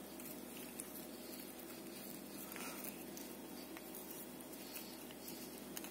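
Faint, irregular clicks and scratchy ticks of a cat chewing on a toothbrush head, over a steady low hum.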